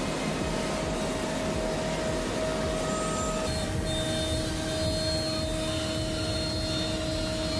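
SM-1325YM nesting CNC router running, its spindle routing melamine-faced board with a steady machine noise and a steady whine. A second, lower tone joins about halfway through.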